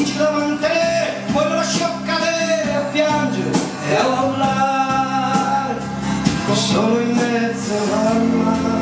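Music: a song with singing over instruments.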